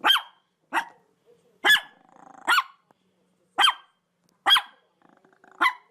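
A dog barking repeatedly: seven sharp, high barks, each dropping in pitch, spaced a little under a second apart.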